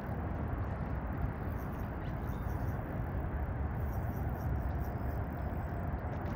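Steady low rumbling outdoor background noise, with no single distinct event.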